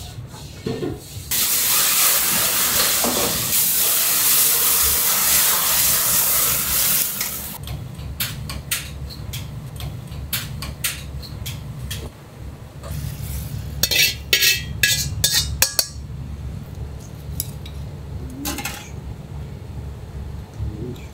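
Ramen kitchen at work: a loud steady hiss of frying or steam for about six seconds, cutting off sharply. Then comes a run of metal clinks and clatter from pots, ladles and bowls, busiest just past the middle, over a low steady hum.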